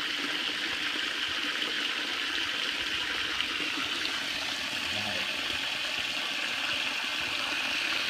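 Steady rush and churn of water in a coffee washing tank, where a motor-driven rack of rods stirs fermented coffee beans to scrub off the mucilage while a hose pours in fresh water.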